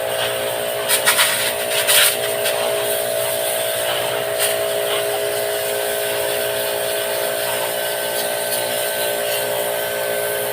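A small electric motor running with a steady buzz, with a few short clattering knocks about one to two seconds in.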